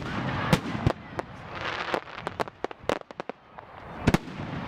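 Aerial firework shells bursting: scattered sharp bangs, a quick run of cracks around two to three seconds in, and a loud double bang near the end, with crackling haze in between.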